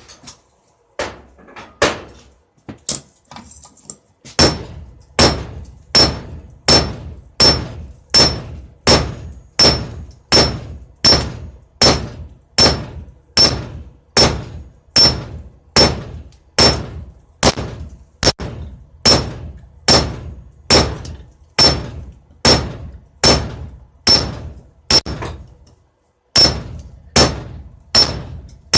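Blacksmith's hammer striking hot steel on an anvil, forging a knife blade, in a steady rhythm of about four blows every three seconds, each with a short high ring. A few lighter, uneven taps come first, and there is a brief pause near the end.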